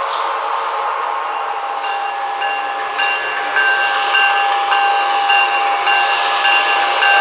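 Sound system of a Broadway Limited Paragon 3 model PRR P5a electric locomotive running: a steady electric locomotive hum over rolling noise, and from about two and a half seconds in a locomotive bell ringing steadily, about two strikes a second.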